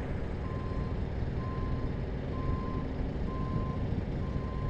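Backup alarm beeping steadily, about once a second, five beeps, on a machine reversing, over the low rumble of a diesel engine running.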